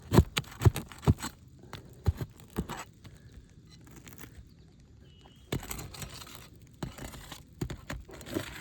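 Worn, brittle asphalt roof shingles being lifted and pried up by hand to reach the nails, giving sharp cracks, crackles and scrapes. The noise comes in two spells: a cluster of cracks in the first three seconds, then more scraping and crackling from about five and a half seconds in.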